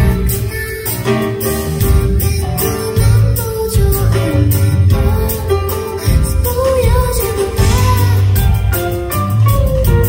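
A woman singing a pop song live at a grand piano, backed by bass and drums, with a wavering sung melody over a steady beat.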